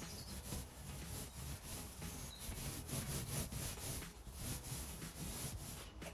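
Paint roller rolling white paint onto a rough stable wall, a repeated wet rubbing sound with each back-and-forth stroke.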